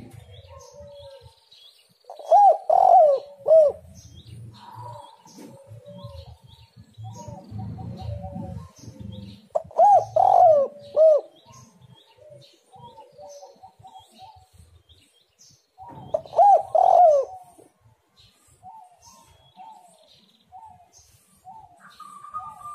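Spotted dove (tekukur) singing its cooing song: three loud phrases of arched coos, about seven seconds apart, with softer single coos between them. Faint, short chirps of small birds run behind.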